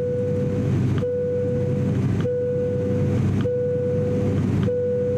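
Cabin drone of an ATR42-600 turboprop in flight: steady propeller and engine noise with a deep hum. Over it, a plain tone sounds five times, each about a second long and starting with a click, at a steady pace.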